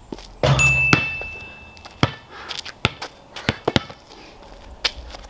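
A basketball strikes the metal hoop with a loud clang that rings on as a high tone for over a second, on a shot that goes in. The ball then bounces several times on the concrete court.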